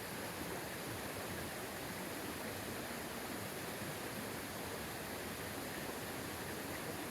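Mountain creek rushing steadily, an even wash of water noise with no break.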